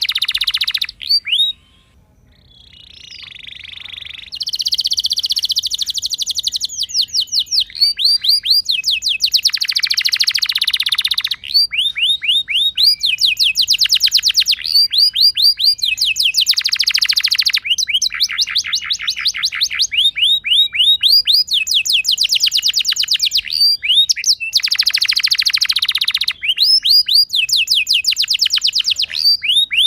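Domestic canary singing a long song of rapid rolling trills: fast runs of repeated falling notes in phrases of a second or two, with a short pause and a buzzy phrase near the start.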